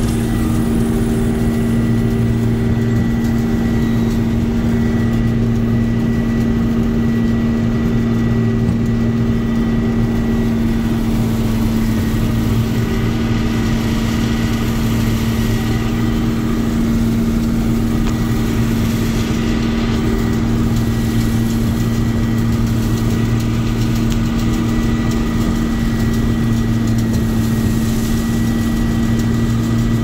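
Combine harvester running steadily while harvesting, heard from inside the cab: a constant engine and machinery drone with a deep hum and a faint high whine.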